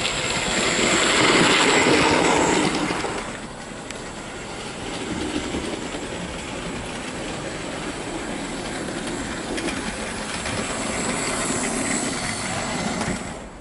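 Hornby OO gauge model of the Duke of Gloucester locomotive running on track: a steady motor hum and wheel rumble on the rails, with no stutter. It is loudest as the model passes close in the first three seconds, drops, then builds again before cutting off at the end.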